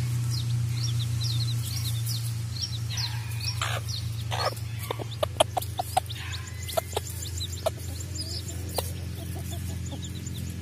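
Domestic chicks peeping in many short high calls while a mother hen clucks. A few sharp taps stand out in the middle seconds.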